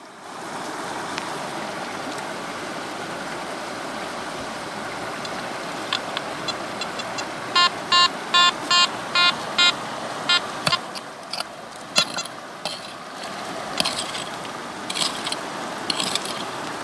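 Steady rush of a stream; midway, a metal detector gives a run of about eight short, pitched beeps, about three a second, as a handful of soil is passed over its coil, the detector's sign of metal in the soil. After that come scattered knocks and scrapes of a small hand pick digging into stony soil.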